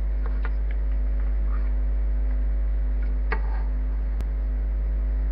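Steady electrical mains hum with its overtones, with a few light clicks and one sharp click about four seconds in.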